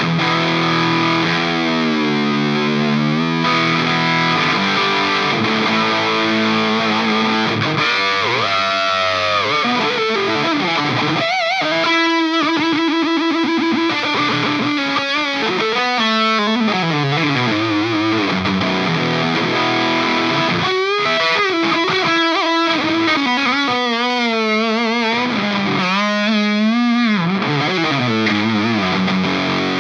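Distorted electric guitar through a Nux Plexi Crunch Marshall-style overdrive pedal into a Kelt Mostro Redhead amp and Kelt 2x12 cabinet, giving a crunchy drive tone. It plays a lead passage of held notes with bends and wide vibrato, with a stretch of fast picking on one note about twelve seconds in.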